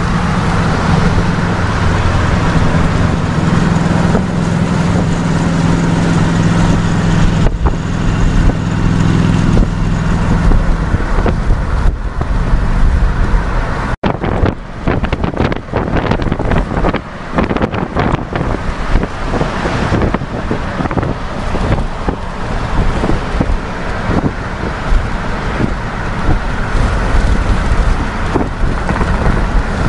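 Road and engine noise of a moving car heard from inside the cabin, with a steady low hum through the first part. After a sudden cut about halfway, the noise turns choppy, with wind buffeting the microphone.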